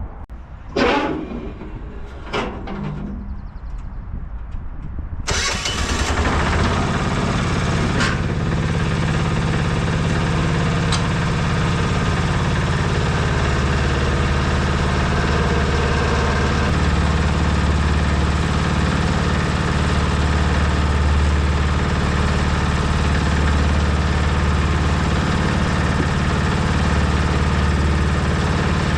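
Cement mixer's small engine starting abruptly about five seconds in, then running steadily while mortar is mixed. A few short knocks come before it starts.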